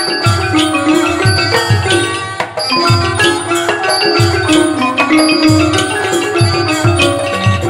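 Thai piphat mai khaeng ensemble playing: rapid hard-mallet ranat xylophone and gong-circle notes over regular low drum strokes, with high metallic cymbal ticks.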